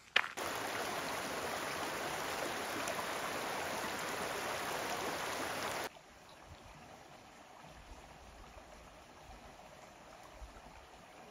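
Steady rush of running water, like a stream, that cuts off abruptly about six seconds in. After it comes quiet outdoor ambience with a faint low rumble.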